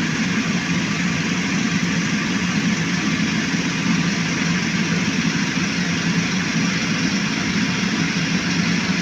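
Engine of a palm-fruit hauling machine running steadily at an even speed.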